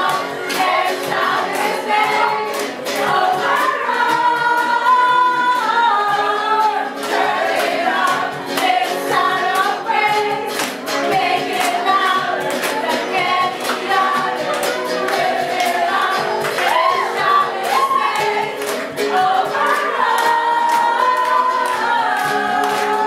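Upbeat Christian praise and worship song: a group of voices singing over band music with a steady beat.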